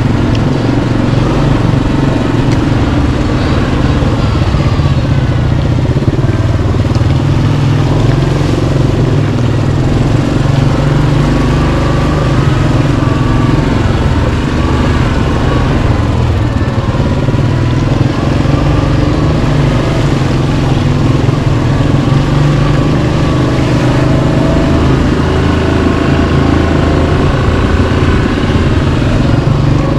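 Yamaha Kodiak 700 ATV's single-cylinder four-stroke engine running steadily under way, the revs rising and falling a little.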